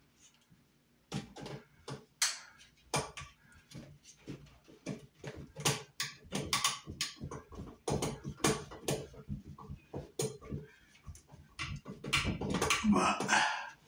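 Screwdriver working the screw of a metal cable connector in a steel ceiling box, loosening it: a quick, irregular run of small metallic clicks and scrapes, with a denser rustling stretch near the end.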